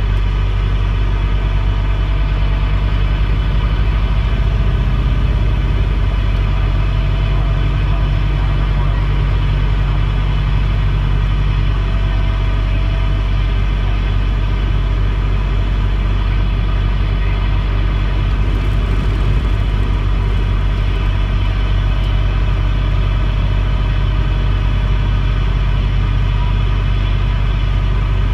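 Steady low drone of a car's engine and tyre noise heard from inside the cabin while driving.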